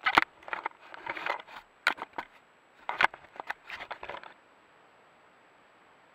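An animal bumping, scraping and brushing against a trail camera right at the microphone: irregular sharp knocks and rustling scrapes as the camera is jolted. It stops about four seconds in, leaving a faint steady hiss.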